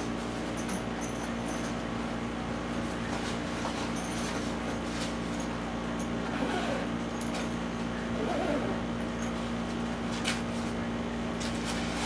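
Camera backpack being handled: fabric rustling and a few light clicks as the padded flap and inner compartment are opened, over a steady background hum.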